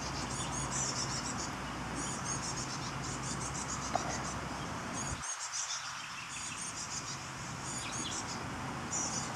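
Insects chirping in short, high-pitched runs that repeat over and over. Beneath them is a low steady hum that cuts off about halfway through.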